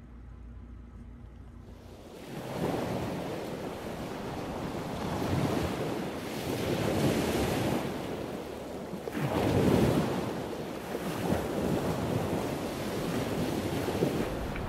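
Ocean waves washing in, a rushing surf that swells and eases every few seconds, starting about two seconds in after a faint low hum.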